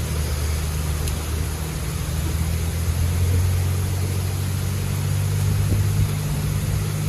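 A vehicle engine idling: a steady low hum under a broad hiss.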